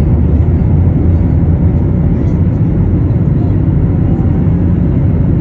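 Airbus A321 cabin noise during the climb after takeoff: the engines and airflow make a steady, loud, low rumble, heard from inside the cabin.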